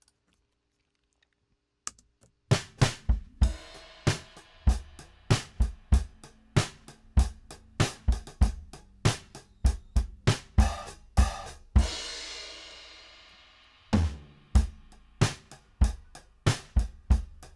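Multitrack recording of a drum kit playing back through a parallel compression bus, being compressed by about 3 dB: kick, snare and hi-hats in a steady groove starting about two and a half seconds in. Near the middle a cymbal rings out and fades over about two seconds before the beat comes back in.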